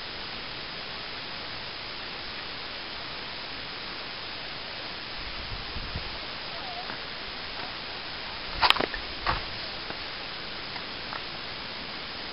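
Steady, even hiss, with two sharp knocks about half a second apart roughly two-thirds of the way through and a couple of faint ticks after them.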